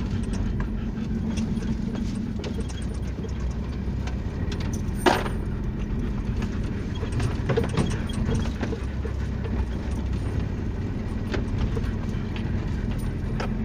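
Off-road vehicle's engine running steadily as it drives over a rough dirt track, heard from inside the cab, with frequent small rattles and knocks from the body and suspension. One sharp knock about five seconds in.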